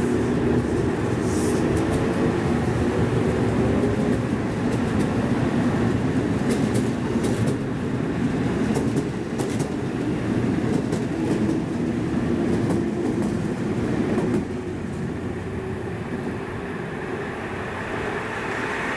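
A train running past on the station track: a steady hum of several tones with scattered wheel clicks over the rails, the noise dropping suddenly about fourteen seconds in.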